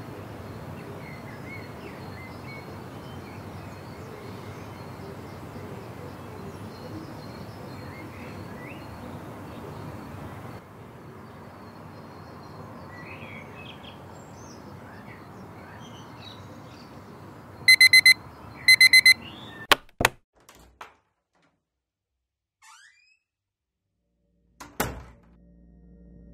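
A digital alarm clock beeping in two quick bursts of rapid, high-pitched beeps, followed by a couple of sharp clicks and then quiet. A steady ambient background runs underneath before the beeps, dropping lower at a cut about ten seconds in. A short thud comes near the end.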